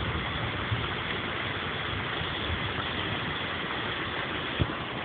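Heavy rain pouring steadily and splashing onto flooded, muddy ground. A dull thump comes near the end.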